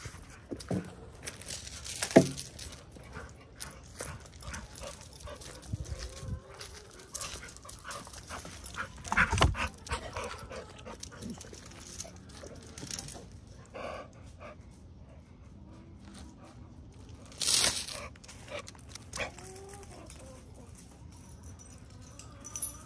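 A dog whining in short rising and falling cries near the end, amid scattered knocks and rustling, with a loud rustling burst about two seconds in and another, the loudest, a little after seventeen seconds.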